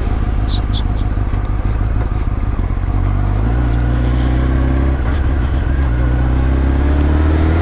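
Supersport motorcycle engine running while riding at low speed; from about three seconds in its note rises slowly and steadily as the bike pulls away gently.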